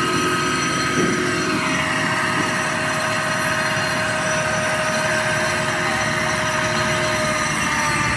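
Flatbed tow truck's hydraulic machinery running under load: a steady, high-pitched whine of several tones over a low engine rumble, one tone sliding down about two seconds in.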